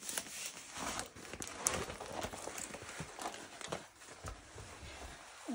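Diamond-painting canvas being unrolled and spread out by hand: its plastic cover film rustles and crinkles, with irregular light taps and knocks as it is handled.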